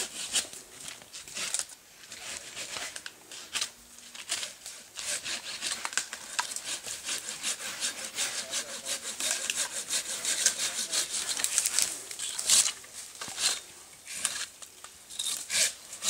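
Japanese pull-stroke pruning saw cutting through a pine branch in quick, rhythmic strokes, with brief pauses.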